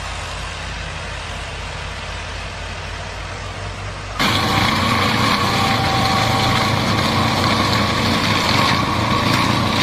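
A heavy machine's engine running steadily with a low hum. About four seconds in it cuts suddenly to a louder, harsher machine sound with steady whining tones.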